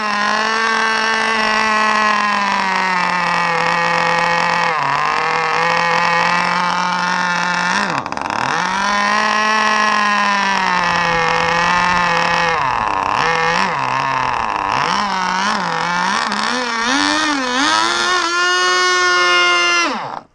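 K&B vintage two-stroke nitro outboard running on a test stand, water-cooled from a garden hose, loud and high-pitched. Its speed keeps sagging and picking back up while the needle valve is tuned, having been set way too rich. Near the end it climbs to a higher, steadier pitch, then stops abruptly.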